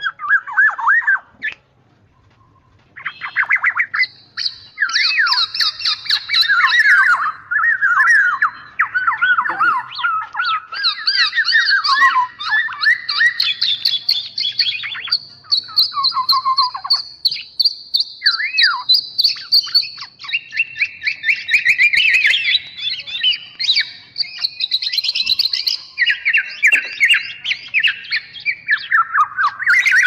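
Black-naped oriole (kepodang) calls from a lure recording: a dense, continuous run of rapid chirps, trills and squawks, often two strands at once, one higher and one lower. After a short lull near the start, the calling picks up about three seconds in and carries on without a break.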